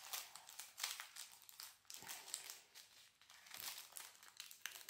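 Faint crinkling of a small plastic bag of square diamond-painting drills, in quick irregular rustles as the bag is handled and opened with scissors.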